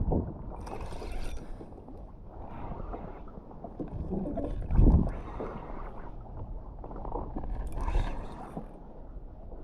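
Water sloshing and splashing against a plastic fishing kayak's hull, with bursts of splashing about a second in and near the end and a dull knock on the hull about five seconds in.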